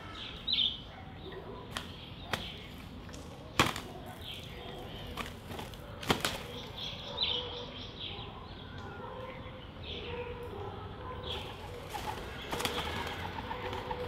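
Doves feeding on seed on a stone slab: wings flapping and a few sharp clicks, with short high bird chirps now and then.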